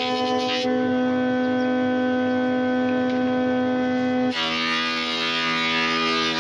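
Thickness planer running with a steady whine. A cutting pass ends about half a second in. Another board goes through the cutterhead about four seconds in, giving a loud cutting rush for about two seconds while the motor's tone drops under the load.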